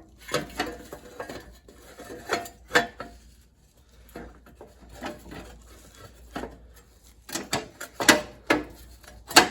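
Sheet-metal muffler shield pieces on a lawn tractor clinking and clanking as they are handled and worked into place around the muffler, in irregular knocks with a brief lull in the middle.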